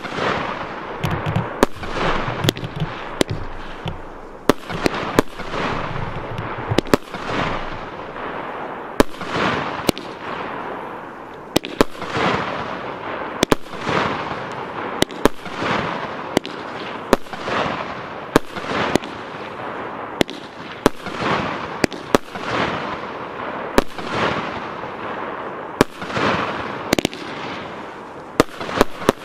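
A 19-shot, 30 mm consumer firework battery (Piromax Sky Flash PXB2211 'Iryd') firing shot after shot: sharp launch thumps and bursts about one every half-second to second, each trailed by a hiss as the stars spread.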